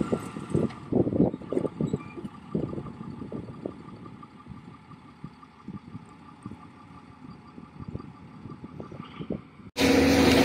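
Heavy diesel engines of the stuck tipper truck and the excavator running. An irregular low rumble fades over the first few seconds to a faint steady hum. About ten seconds in, the sound jumps suddenly to a louder, steady engine drone as the excavator comes close.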